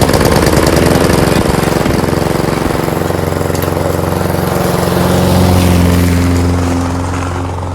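Petrol lawn mower engine just pull-started, running unevenly for the first couple of seconds before settling into a steady run. It has caught after several failed pulls, once the loose pull cable was refitted.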